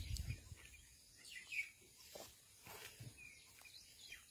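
Faint, scattered bird chirps: short calls with quick pitch glides, the loudest about a second and a half in, over a quiet open-air background with a few soft rustles.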